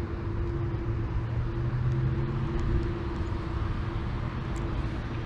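Wind rumbling over the microphone, with a steady low hum underneath and a few faint ticks.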